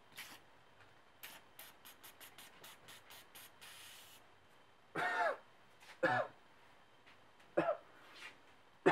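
An old aerosol can of oven cleaner sprays in a run of short hissing spurts and then one longer hiss. This is followed by a man coughing hard three times and again near the end, choking on the oven-cleaner fumes without a respirator.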